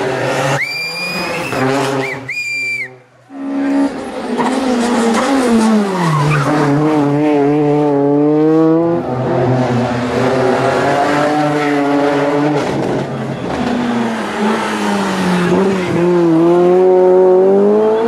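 Rally car engines driven hard through tight corners, one car after another: engine pitch drops as a car brakes and changes down, then climbs again through the gears. A high tyre squeal sounds twice in the first three seconds.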